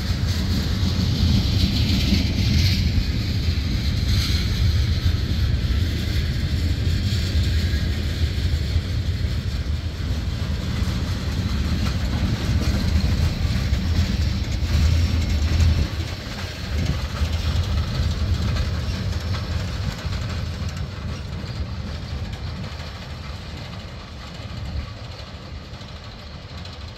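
Freight train of tank cars and covered hoppers rolling past: a steady rumble of steel wheels on rail, with some clickety-clack. After about sixteen seconds the sound fades as the train moves off.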